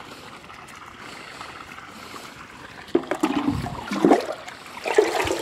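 Liquid sloshing and splashing as a plastic container is dipped into a large pot of fertilizer solution, a few times from about three seconds in. Before that there is only faint steady background noise.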